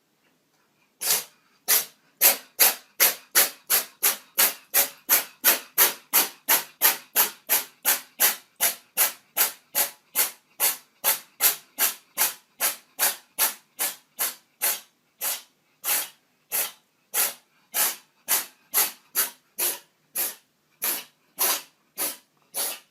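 Cat sneezing over and over in a long unbroken run of short, sudden sneezes. They come about two and a half a second at first and slow to about one and a half a second near the end.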